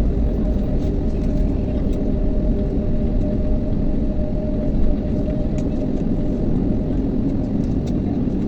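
Cabin noise inside an Airbus A321 on the ground just after landing: a steady low rumble of the engines and the rolling airframe. A faint steady whine fades out about halfway through.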